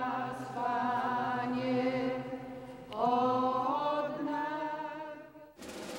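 Sacred choral chant as background music: slow sung phrases with long held notes, a new phrase beginning about halfway, fading out shortly before the end.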